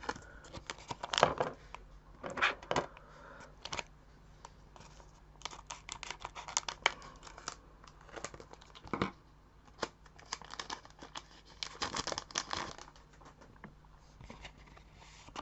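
Scissors snipping open a thin Japanese Pokémon booster pack, with crinkling of the wrapper: irregular snips and rustles in several short bursts.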